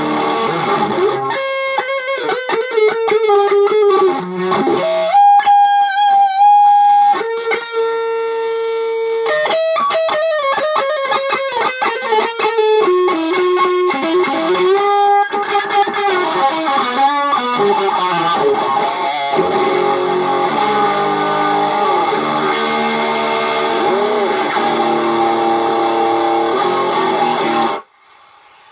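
Instrumental guitar music played through effects: quick runs of notes, long held notes, and later wavering notes over chords, stopping abruptly near the end.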